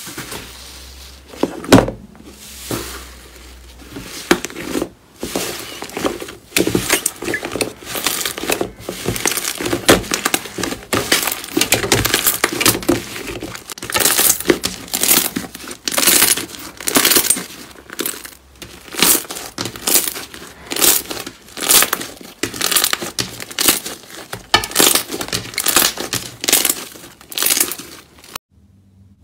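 Hands pressing, squeezing and kneading soft pink slime: dense runs of sharp pops and clicks as the slime is worked. In the later part they come in loud squeezes about once a second.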